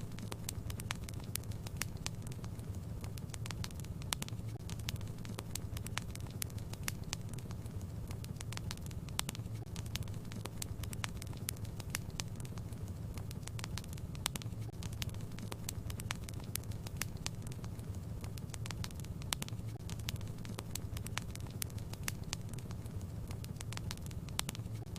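Wood fire burning in a fireplace, crackling with many quick sharp pops over a steady low rumble.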